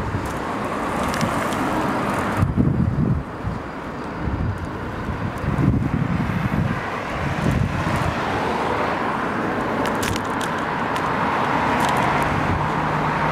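Wind buffeting the microphone of a camera on a moving bicycle, with low gusty rumbles over road and passing car-traffic noise. A few short sharp clicks are heard, and a steady low hum comes in near the end.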